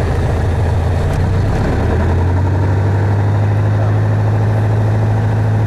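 Piper Arrow's piston engine and propeller running, heard from inside the cockpit; its low hum settles into a steady note about two seconds in.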